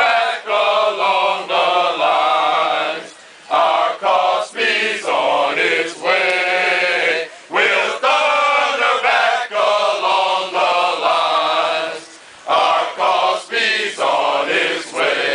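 A group of men singing a fraternity hymn together, unaccompanied, in long phrases with short breaks between them.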